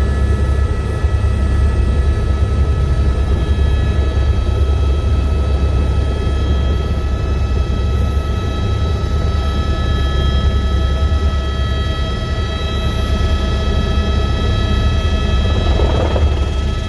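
Airbus AS350B3e helicopter heard from inside the cabin during lift-off: its single turbine gives a steady high whine over a heavy, low drone from the main rotor.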